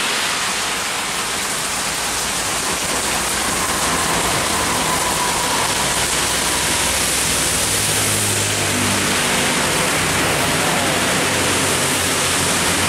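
Heavy rain falling steadily. About eight seconds in, a heavy truck's low engine drone comes up over it as the truck passes on the wet road.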